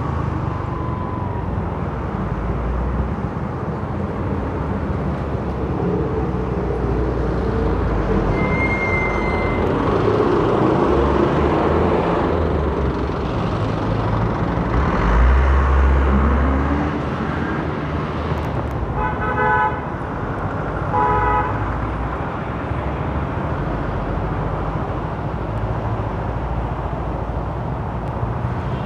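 Road traffic noise around a motorcycle in city traffic, with a vehicle horn tooting twice, about two seconds apart, roughly two-thirds of the way through.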